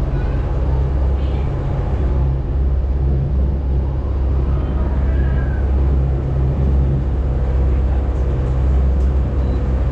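Launch boat's engine running with a steady low drone, heard from inside the passenger cabin, with a rushing hiss of water and air over it.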